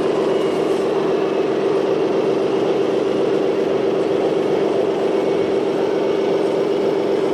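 Small motor of a radio-controlled model truck running at a steady speed, an even, unchanging whine.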